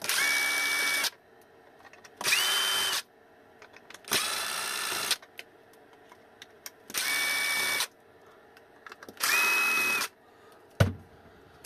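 Electric screwdriver backing out five screws from an e-bike battery case: five runs of about a second each, a second or two apart, each with a steady whine. A short knock near the end.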